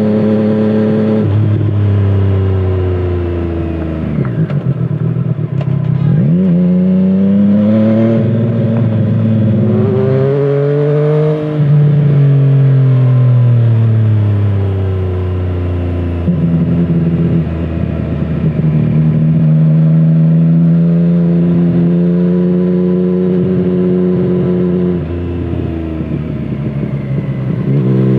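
The inline-three engine of a 2017 Triumph Street Triple 765 RS, through a Scorpion Serket carbon exhaust, heard from the rider's seat while riding: revs rising and falling with the throttle and gear changes, a long steady cruise in the middle, then a drop and pick-up near the end.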